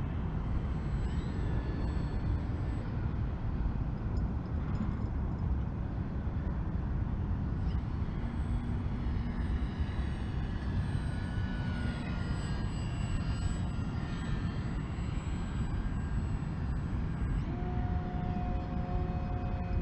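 Electric motor and propeller of an FMS MXS 1100 mm 3D RC plane whining in flight, the pitch shifting with the throttle and then holding steady near the end, over a steady low rumble.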